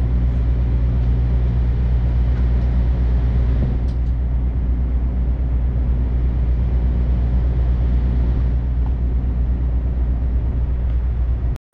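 Heavy diesel engine idling steadily, a low even drone with no change in speed. It cuts off abruptly near the end.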